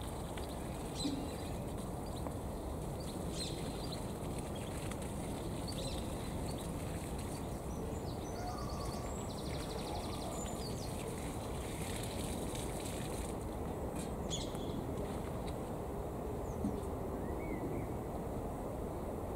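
Steady low outdoor background noise with small birds chirping now and then, including a quick rapid trill about eight to ten seconds in.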